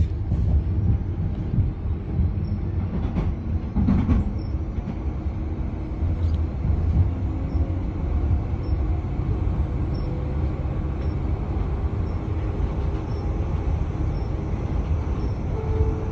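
Light-rail train in motion: a steady low rumble of the car running along the track, with a few faint knocks in the first few seconds.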